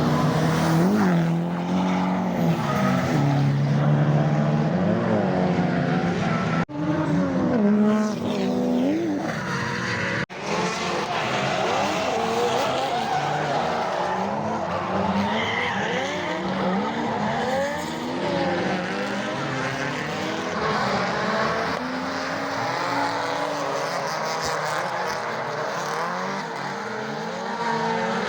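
Drift cars on track, engines revving up and down through repeated rises and falls in pitch, with tyres squealing and skidding. The sound breaks off abruptly twice, about seven and ten seconds in.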